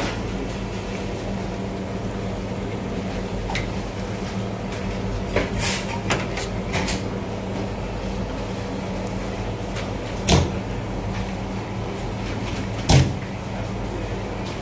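Handling a large surmai (king mackerel) on a wooden cutting board: a few light clicks from scissors trimming at the gills, then two dull thumps about ten and thirteen seconds in as the cut fish is moved on the board, over a steady hum.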